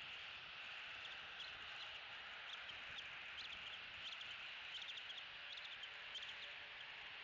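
Bald eagle chicks peeping: many short, high, rising peeps, often in twos and threes, starting about a second in, over a steady faint hiss.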